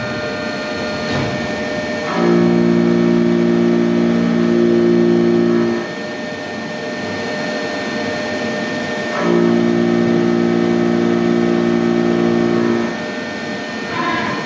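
Hyundai HIT 8 S CNC lathe running with a steady machine hum and whine. Twice, a louder steady low hum comes in abruptly, holds for about three and a half seconds at a constant pitch, and cuts off.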